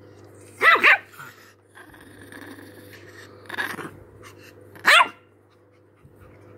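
Chihuahua barking sharply at a hand petting its back and tail: two quick barks under a second in, a weaker one around three and a half seconds, and one more loud bark about five seconds in, over a faint steady hum.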